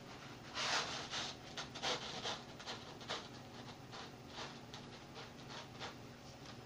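A knife sawing horizontally through a block of soft Hawaiian sweet rolls, with repeated back-and-forth rasping strokes about two or three a second. The strokes grow fainter in the second half.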